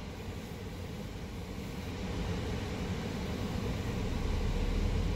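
Car cabin noise heard from the driver's seat: a steady low rumble of engine and road, slowly getting louder.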